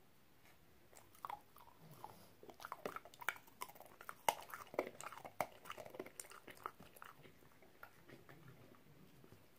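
French bulldog biting and crunching a hard bone-shaped dog treat, with wet chewing in between. The crunching starts about a second in, is densest in the middle and thins out near the end.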